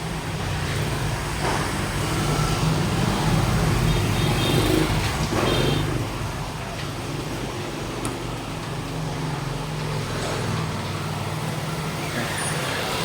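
Road traffic noise: vehicle engines running steadily, with a few short high tones in the middle.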